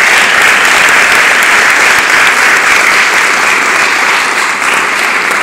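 Audience applauding: dense, steady clapping from a large crowd that eases slightly near the end.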